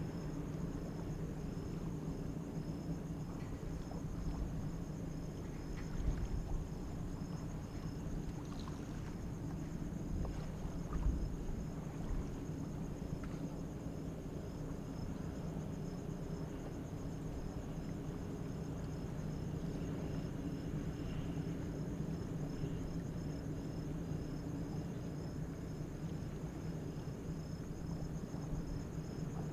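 Insects chirping in an even, repeating high pulse over a steady low hum of ship's machinery, with a couple of faint low knocks.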